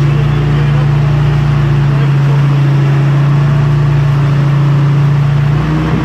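Forklift engine running steadily with a constant low hum as it carries a flatbed tow-truck bed.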